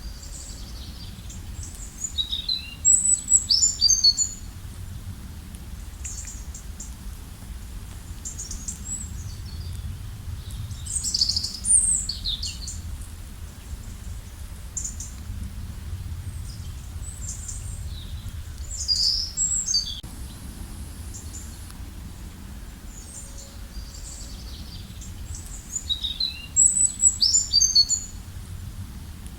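Songbird singing short phrases of high, quick chirps and trills, four bursts with pauses between them; the loudest are near the start and near the end, and those two sound alike. Underneath runs a steady low rumble.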